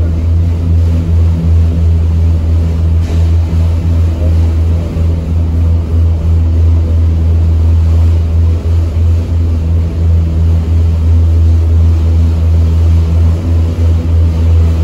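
Passenger ferry's engines running while under way: a loud, steady low drone heard from inside the cabin.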